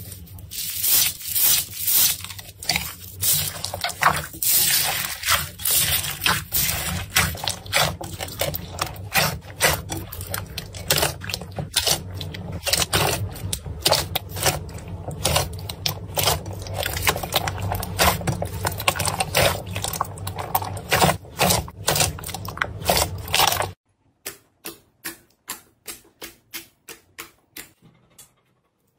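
Slime being squeezed and worked by hand, a dense run of wet crackling and popping clicks. It stops suddenly near the end and gives way to softer, separate clicks, about three a second.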